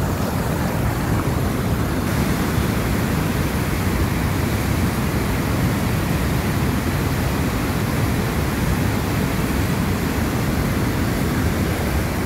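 Fast mountain river rushing steadily through white-water rapids over boulders.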